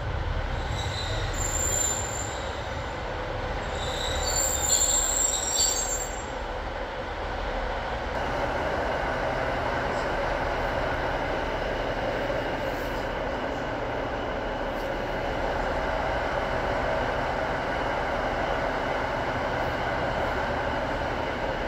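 Class 156 diesel multiple unit braking into the platform, its brakes squealing at a high pitch in the first six seconds. Then the train stands with its underfloor diesel engines idling in a steady hum.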